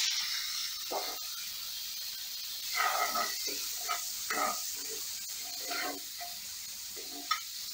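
Tomato pieces sizzling as they fry in hot oil in a kadai with onions and green chillies, the hiss strongest right at the start and easing off. A metal ladle stirs and scrapes against the pan several times.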